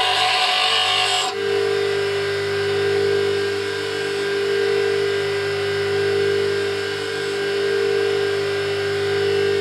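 Bench grinder grinding a metal part against the wheel for about the first second, then the work is lifted off and the grinder keeps running free with a steady hum.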